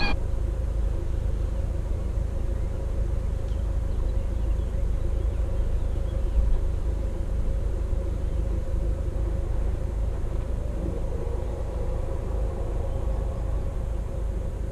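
A canal boat's engine running steadily, a low rumble with a steady hum over it.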